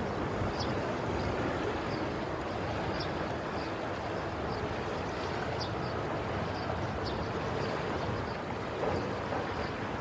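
Ocean waves washing on the shore as a steady, even rush with a low rumble. Faint short high chirps repeat about every half second.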